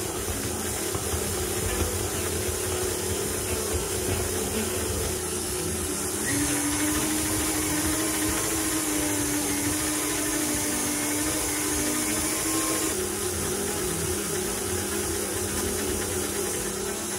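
Electric stand mixer running steadily, its dough hook kneading bread dough in a steel bowl as the dough is worked until it develops its gluten. A clearer humming tone comes in about six seconds in and drops out about thirteen seconds in.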